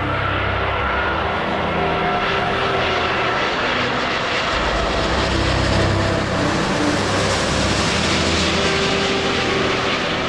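Airbus A380 jet engines passing on approach. A steady rushing noise swells and grows brighter about six to nine seconds in, with held music notes faintly underneath.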